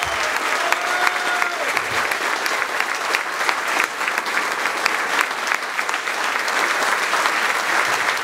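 An indoor crowd applauding steadily, a dense, even clatter of many hands clapping.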